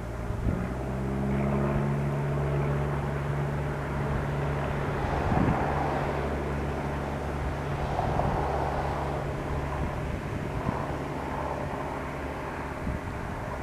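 A SEPTA Silverliner V electric commuter train running: a steady low hum of several held tones over a rumbling wash of noise, with brief swells in the noise about five and eight seconds in.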